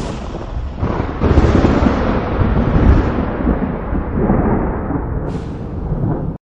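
Thunder: a sharp crack, then a loud rolling rumble that swells about a second in, another crack near the end, and the sound cuts off abruptly.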